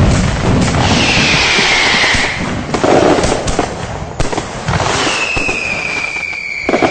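New Year firecrackers and fireworks going off: rapid bangs and crackling, with two high whistles that fall slightly in pitch, one about a second in and one about five seconds in.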